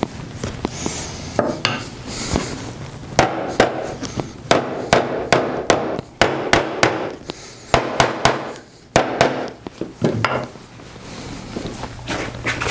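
Small plastic-faced mallet tapping a glued walnut inlay down into its recess in a cherry end-grain cutting board, in quick runs of several sharp strikes with short pauses between. The inlay is a tight fit and takes many blows to seat.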